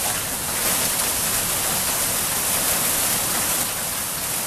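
Hail and rain falling in a steady, dense hiss.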